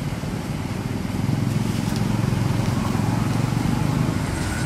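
Low, steady engine rumble of a passing motor vehicle, swelling about a second in and easing near the end.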